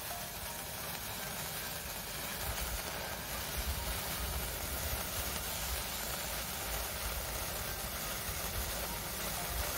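Handheld sparkler burning with a steady fizzing hiss, with a low rumble underneath from about two and a half seconds in.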